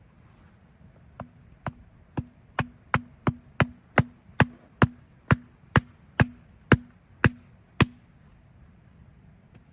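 About fifteen sharp blows from a hand tool, roughly two a second, each with a short low ring; they grow louder over the first few strokes and stop about two seconds before the end.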